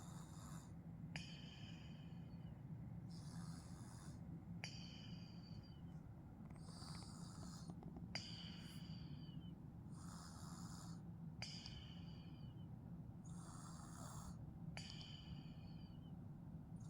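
A sleeping person snoring faintly through a nose blocked by a cold, in a slow regular rhythm of about five breaths: each breath a hiss followed by a thin whistling tone that starts with a small click. A steady low hum runs underneath.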